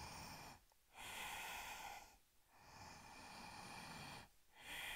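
A woman's Ujjayi breathing: slow breaths drawn in and let out through a narrowed throat, each about a second or more long, with short pauses between them.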